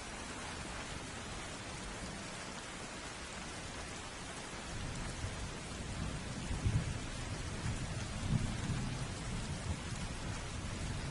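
Steady heavy rain falling, with rolling thunder rumbling in about halfway through and swelling twice before the end.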